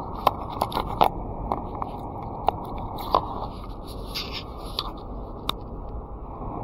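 Steady low road and engine rumble of a moving car, with about ten irregular sharp clicks and taps scattered through it.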